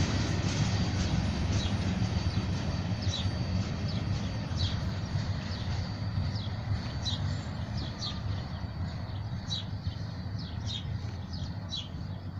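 Freight train rumbling low and slowly fading as it moves away, with a bird chirping in short, falling notes that come more often toward the end.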